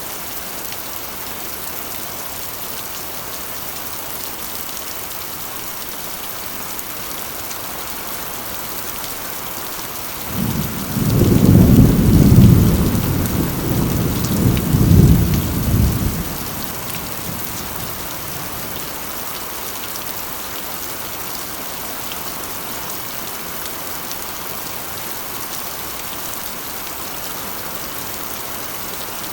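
Steady rain drumming on a corrugated iron roof. About ten seconds in, a roll of thunder rumbles low for some five seconds, swelling twice, then fades back under the rain.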